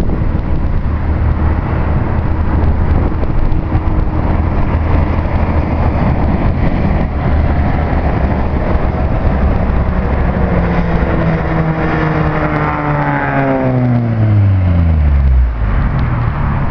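Chevrolet Chevette four-cylinder engine and exhaust rumbling loudly. For the second half its note falls steadily in pitch over about five seconds as the revs drop, then it eases off.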